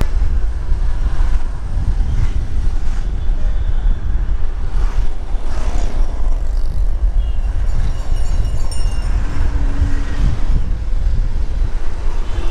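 Busy city road traffic heard from a moving vehicle, with a city bus, auto-rickshaws and motorbikes passing close by. A heavy low wind rumble on the microphone runs throughout.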